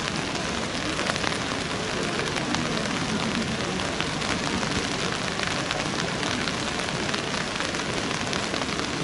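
Steady rain falling, a constant hiss with many small drop hits through it.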